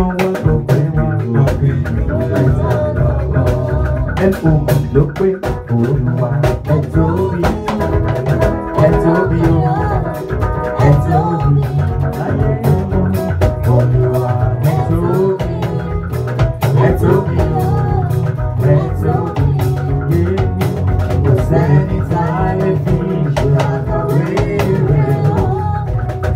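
Live band playing a song: guitar, keyboard and drum kit with a steady beat, and a woman singing into a microphone.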